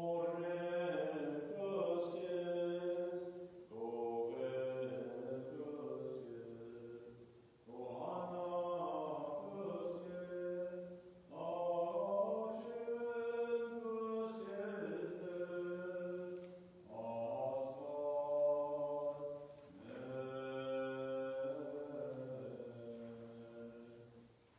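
Armenian liturgical chant: sung in about six long, sustained phrases with short pauses between them, dying away near the end.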